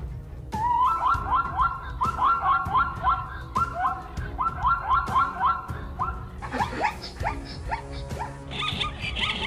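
Zebras giving repeated barking alarm calls, quick rising yelps in runs of several at a time. About two-thirds through, the calls thin out and a harsher, different sound comes in.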